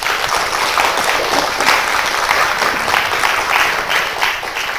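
Lecture audience applauding steadily, beginning to fade near the end.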